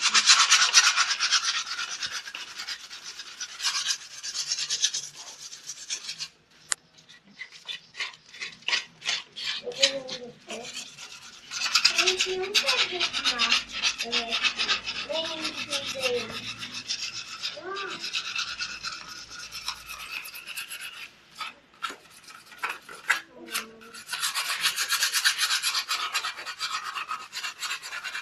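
Rapid rubbing and scraping strokes against a child's bicycle frame as it is worked over before repainting. The strokes come in runs of several seconds with short pauses.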